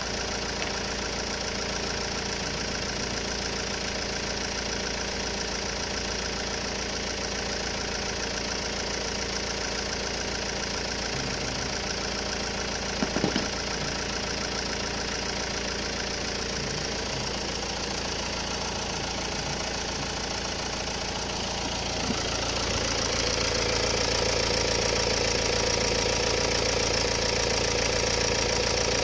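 Car's diesel engine idling steadily with the bonnet open, with one brief knock about halfway through. Near the end the engine speed rises and holds at a higher, louder level.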